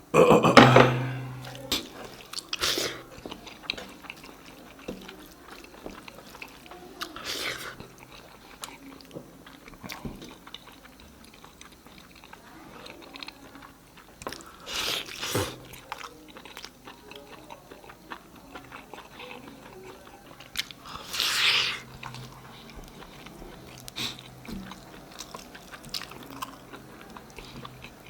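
Close-miked mukbang eating: a person chewing and biting food, with many small wet mouth clicks and a few louder bites spread through.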